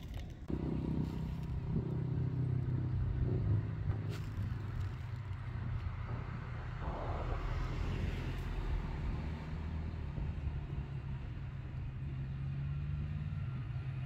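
A steady low engine hum, with a brief, noisier swell about seven seconds in.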